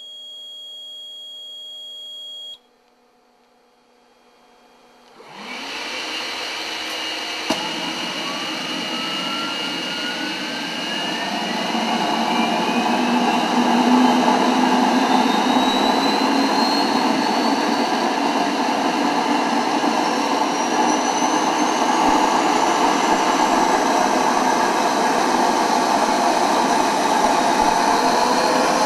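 Startup of a home-built twin-shaft gas turbine engine: a steady electronic tone for about two and a half seconds, then a short quiet gap. About five seconds in a rush of air starts, with a click a couple of seconds later and a whine that rises steadily in pitch as the turbine spools up, then settles into a loud, steady run.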